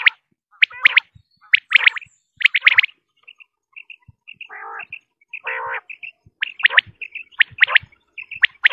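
Quail calling: sharp whistled notes in quick clusters of two or three, repeated about once a second. About three seconds in the phrases pause, and only soft short chirps and two rougher, lower notes are heard before the phrases start again.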